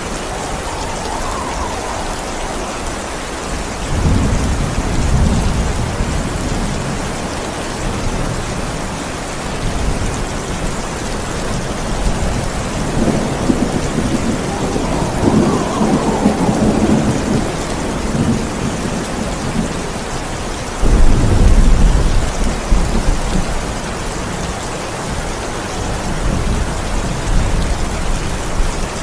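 Steady heavy rain with rolling thunder: a low rumble about four seconds in, a longer swell in the middle, and the loudest, sharp-onset crack of thunder about 21 seconds in.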